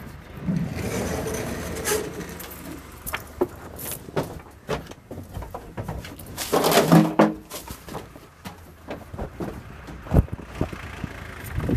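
Handling noise from a handheld phone being moved about: rustling with scattered clicks and knocks, and a louder burst about seven seconds in.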